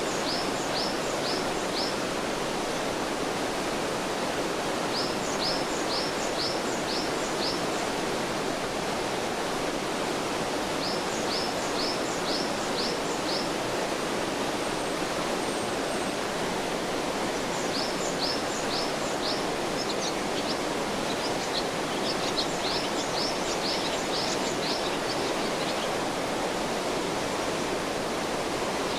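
Mountain stream rushing steadily over rocks, with a small songbird repeating a short phrase of about five quick high notes every five or six seconds.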